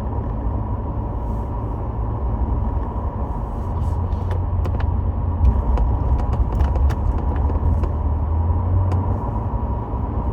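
Steady low rumble of a moving car, with a faint steady high hum and a few light ticks.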